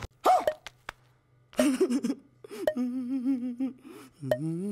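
A man's wordless, exaggerated fake crying: a few short sobs, then a wavering wail, then a rising 'hmm?'-like voice near the end, over a faint steady low hum.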